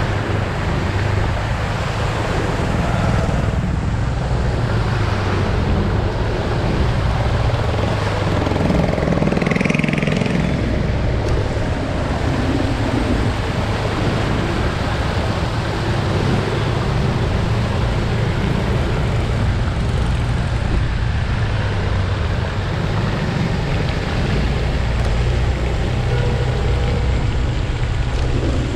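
Motor scooter ride recorded from the scooter itself: a steady engine and road rumble with traffic noise around it, and a brief higher sound about nine seconds in.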